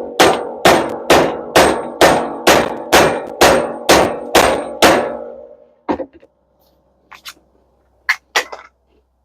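Hammer blows on a metal part of a dishwasher, about two a second for some ten strikes, each with a short metallic ring, then a few lighter scattered knocks. The blows are an attempt to knock out a small brass piece that is set in epoxy and will not come free.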